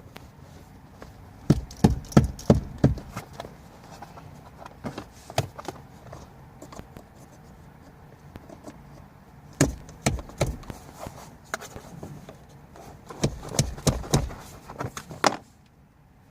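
Bursts of sharp knocks and taps, several in quick succession, three clusters in all: hands pushing and tapping the aftermarket dead pedal and its clips into place in a car's footwell.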